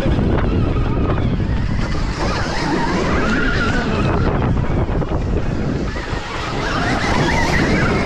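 Electric motocross bikes running on track, their motor whine rising and falling with speed, under heavy wind noise on the microphone.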